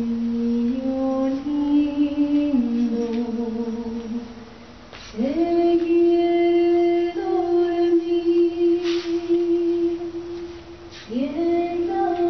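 Background song: a woman's voice singing a slow melody in long held notes, sliding up into each phrase, with two short breaks between phrases.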